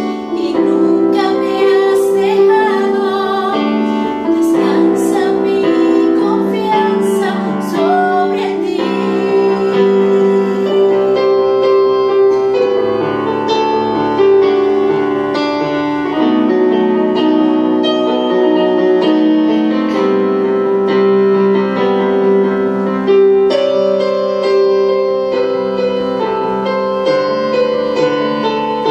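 A woman singing a ballad with electronic keyboard accompaniment; about ten seconds in her voice drops out and the keyboard plays on alone in a piano sound.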